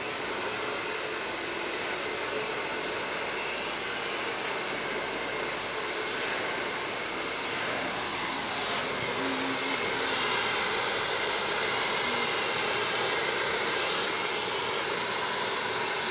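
Hair dryer running steadily, a loud even hiss.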